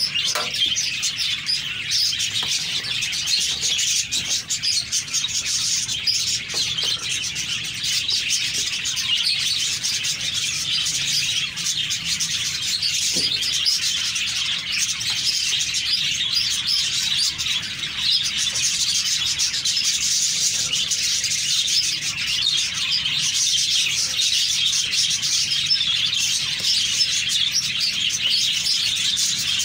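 Many small birds chirping continuously, a dense steady chorus.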